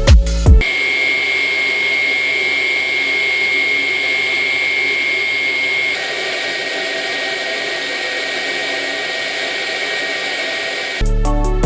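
Dreame V12 Pro cordless stick vacuum running steadily with a high motor whine. About six seconds in it steps down slightly in loudness and pitch.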